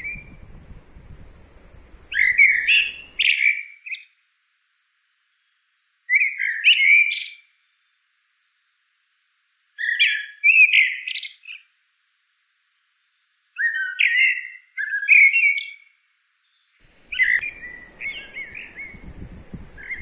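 A songbird singing short, quick warbled phrases, five in all, about every four seconds.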